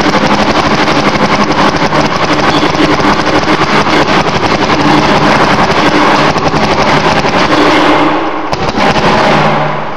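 Paintball marker firing in a rapid, unbroken stream of shots, with a steady hum underneath; the firing stops just before the end.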